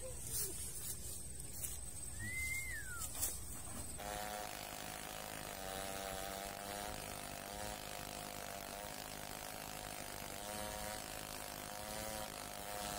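Two-stroke chainsaw running steadily as it rips a log lengthwise into planks, from about four seconds in. Before that, a few sharp clicks and one short falling chirp over outdoor background noise.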